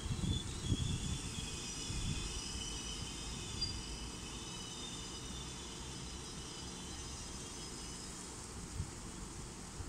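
ICE 1 train rolling slowly along the platform: a low, steady rumble with gusts of wind on the microphone, especially in the first couple of seconds. Faint, high, wavering tones sound over it during the first half and fade out. No horn is heard.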